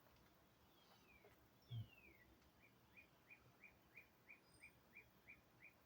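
Faint bird calls over near silence: two downward-sliding whistles, then a steady run of short chirps about three a second. A soft low thump just before the chirps begin.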